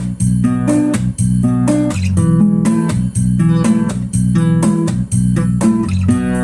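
Background music led by a plucked guitar, with a steady beat and bass.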